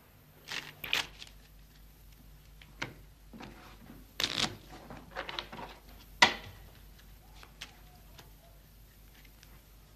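A deck of Spanish playing cards being shuffled and handled on a wooden table: short bursts of riffling and flicking. One sharp tap, the loudest sound, comes a little after the middle.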